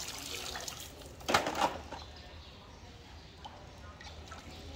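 Water streaming and dripping off a plastic toy truck held over a plastic basin of water, then a loud splash about a second and a half in, followed by lighter sloshing as small hands move in the water.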